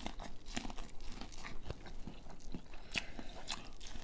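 A person biting kernels off a buttered corn cob and chewing, close to the microphone: a string of short, crunchy clicks.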